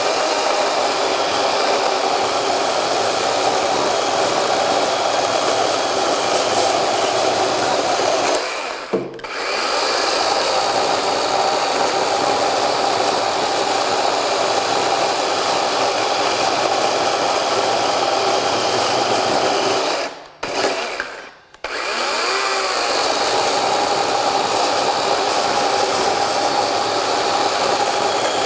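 DeWalt 20V 12-inch XR cordless chainsaw cutting hardwood under load, running steadily. The motor drops off briefly about nine seconds in, and again twice around twenty to twenty-one seconds, spinning back up each time.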